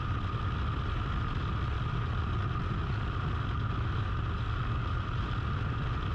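Snowmobile engine and track running steadily at a constant cruising speed.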